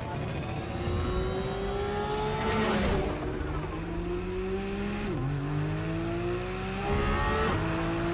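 Sports car engine accelerating hard through the gears, its pitch climbing steadily and dropping sharply at three quick upshifts spaced about two and a half seconds apart.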